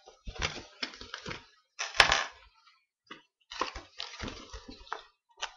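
Paper envelope crinkling and rustling in irregular bursts as it is handled and turned over in the hands, with a sharp crackle about two seconds in.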